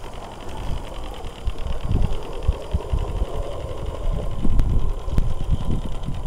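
Live steam SM32 Shay geared locomotive running, its exhaust beating in a rapid, even chuff, over an irregular low rumble.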